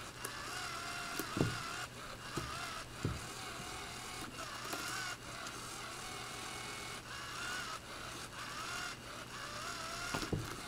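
Small electric motor of a motorized cat wand toy running steadily, its whine wavering in pitch as the feather wand swings, with a few soft thumps as the cat bats at it.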